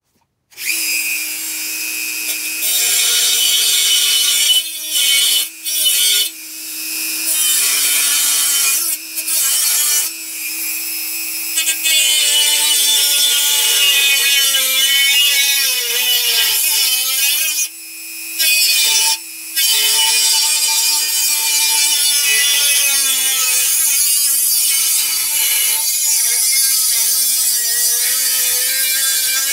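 Handheld high-speed rotary tool grinding the edge of an aluminium air-cleaner pan: a steady motor whine with a hiss from the bit on the metal, the pitch sagging at times under load. It is lifted off briefly several times.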